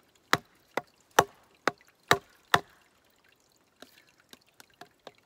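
Wooden baton knocking on the spine of a Fallkniven TK2 knife, driving the blade down through a stick of firewood about 3 cm thick to split it in half. Six sharp knocks a little over two a second, then a few faint ticks near the end.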